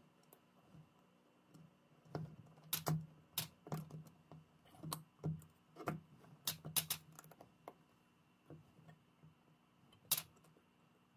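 Small irregular clicks and taps of metal parts being handled: a brass fitting worked onto copper tubing and the jointed arms of a helping-hands clamp being set, over a faint steady hum.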